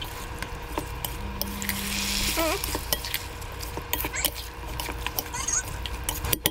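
A spatula scraping and knocking against a metal pan while stirring chunks of raw chicken with onions: a quick, irregular run of clicks and scrapes.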